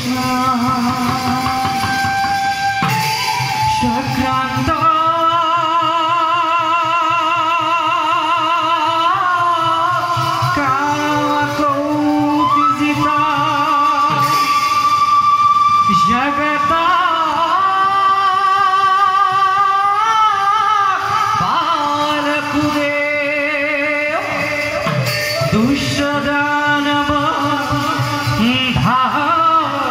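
Traditional devotional music for a Krishna dance-drama: a singer's long, wavering held notes over instrumental accompaniment and a steady drum beat.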